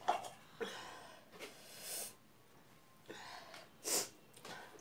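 A woman's breathy puffs and exhales through pursed lips, with mouth sounds, coming in several short bursts.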